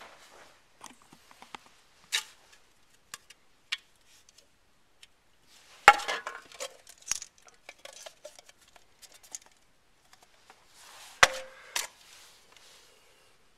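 CYMA CM028 electric airsoft rifle fired in single shots a few seconds apart at soda cans, each a sharp crack, the loudest about six and eleven seconds in with a brief clatter after. Lighter ticks and taps come between the shots.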